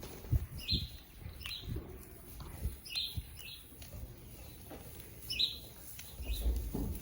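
A songbird chirping, short high calls mostly in pairs about every two and a half seconds, over low irregular thumps and rumble.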